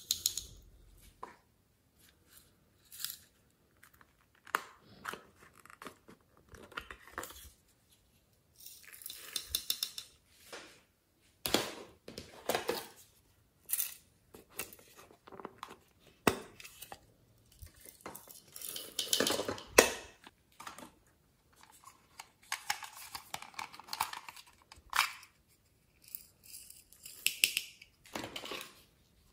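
Small plastic containers handled and shaken, with glitter and sequins poured into a glass tray of slime: irregular clicks and taps of the plastic and short rustling pours.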